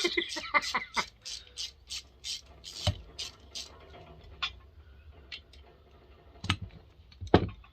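Ratchet wrench clicking rapidly, about four clicks a second, while working a fastener on a McCulloch 7-10 chainsaw. Then a few separate metallic knocks of parts being handled, the loudest near the end.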